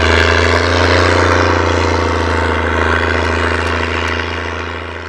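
Case IH 1455 XL tractor's six-cylinder diesel running steadily under heavy load as it pulls a deep-set subsoiler, its straight stainless-steel exhaust pipe loud. The sound fades away near the end.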